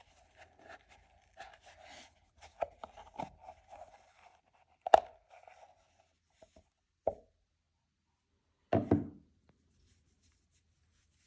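Packaging being handled during an unboxing: soft rustling and scraping, a sharp click about five seconds in, another click near seven seconds, and a short clatter of knocks around nine seconds.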